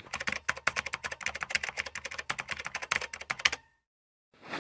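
A rapid, uneven run of sharp clicks, about ten a second, that stops abruptly about three and a half seconds in.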